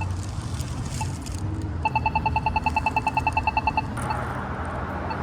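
Polara iNS accessible pedestrian signal push-button ticking: a slow locator tick about once a second, then for about two seconds a rapid ticking of about ten ticks a second, the unit's walk indication, before the slow tick resumes. A steady low rumble lies underneath.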